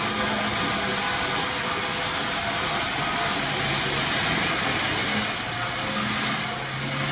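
Steady hissing machinery noise with a low hum and no distinct hammer blows.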